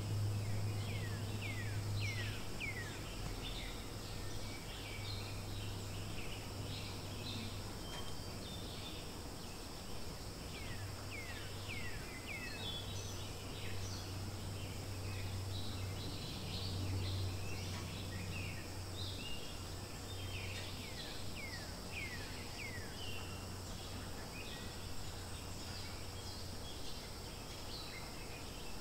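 Forest ambience: a steady high insect drone with many short, downward-sweeping bird chirps scattered throughout, over a low hum that fades out near the end.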